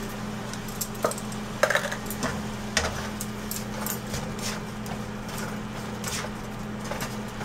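Plastic spatula stirring cauliflower in a nonstick pan: irregular scrapes and light clicks against the pan, over a steady low hum.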